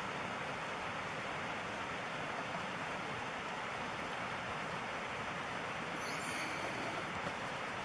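Steady rushing of a river running over a gravel bed, an even wash of noise that does not rise or fall.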